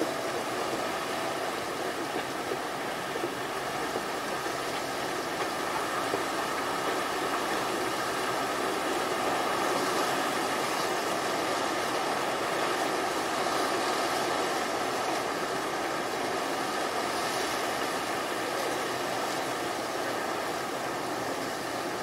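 Gulf of Mexico surf heard from the beach as a steady wash of noise, swelling slightly around the middle, with no distinct single wave crashes.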